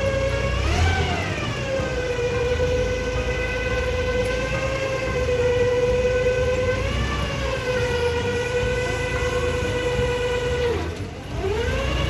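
A machine motor whining at a steady pitch. It rises briefly about a second in and again around seven seconds, then sags and dips near the end before picking back up.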